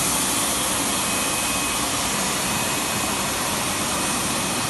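Miller Weldmaster 112 Extreme seam welder running as it welds a seam along a length of fabric: a steady, even blowing rush with a faint, constant high whine.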